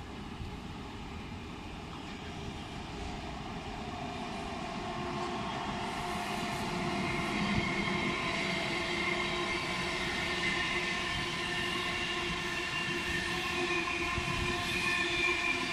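Intercity passenger train hauled by an electric locomotive rolling past, its rolling rumble growing louder from about four seconds in. Steady high-pitched tones ring over the noise as the coaches go by.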